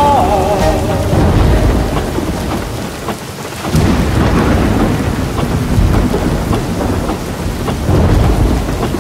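Heavy rain falling steadily with rolling thunder, a low rumble that surges and eases, dropping back briefly about three seconds in. A song cuts out in the first second.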